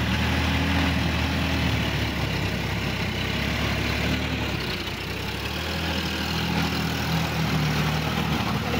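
Sonalika DI-50 RX tractor's diesel engine running steadily as it drives a rotary tiller through flooded paddy mud, with a steady hiss of rain and churning mud over it.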